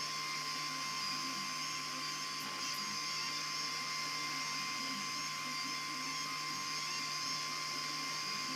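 Makergear M2 3D printer at work with its 3 mm filament extruder: stepper motors whirring in low, shifting tones as the head moves, over a steady fan hiss and a thin high whine.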